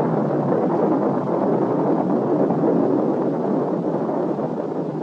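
Steady, rough rumble of a rocket explosion, the fireball and smoke cloud rolling on without any distinct blasts.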